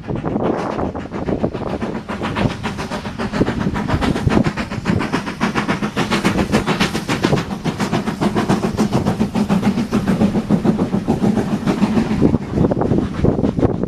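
Heritage railway passenger coaches rolling past close by behind BR Standard 4MT tank 80136, their wheels clicking rapidly over the rail joints over a steady rumble. The clicking eases off near the end as the last coaches pass.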